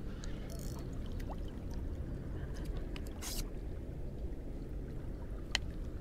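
Water lapping and sloshing against a boat's hull over a steady low rumble, with scattered faint ticks and one sharp click about five and a half seconds in.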